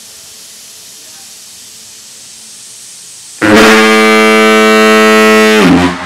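Type F diaphone foghorn, blown on compressed air, sounding one low, steady blast of about two seconds. It starts suddenly a little past three seconds in and dips in pitch as it cuts off near the end.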